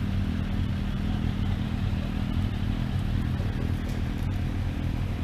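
Motorcycle engine running at a steady low speed.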